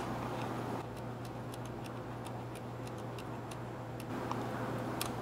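Film-advance knob of a Yashica 44LM twin-lens reflex ratcheting as 127 roll film is wound on toward frame one: a run of light, sharp clicks, a few each second, over a low steady hum.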